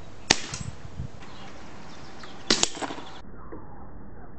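Crosman M4-177 multi-pump air rifle firing: a sharp crack about a third of a second in, then a second pair of sharp clacks about two and a half seconds in.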